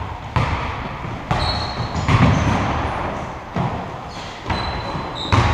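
A basketball bouncing on a hardwood gym floor: about six irregularly spaced thuds that echo in the hall, mixed with a few short, high squeaks of sneakers on the court.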